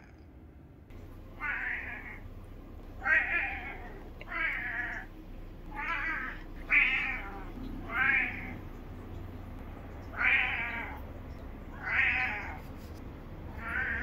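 Brown tabby cat meowing again and again, about nine short calls of roughly half a second each, one to two seconds apart: the repeated call its owner calls 'jami-jami'.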